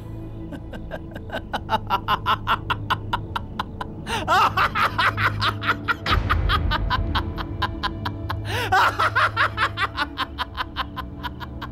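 A man laughing long and hard in rapid 'ha-ha' pulses, about five a second, swelling loudest about four seconds in and again about two-thirds through, over low background music.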